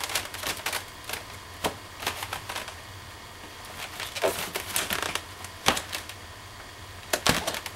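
Handling noise from a boxed DVD set being turned over in the hands: scattered sharp clicks and light rustles of the packaging, the loudest knocks near the end.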